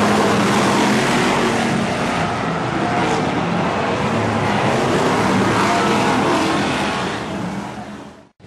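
A pack of BriSCA F1 stock cars with V8 engines racing at full throttle, a loud, dense engine noise that fades away near the end.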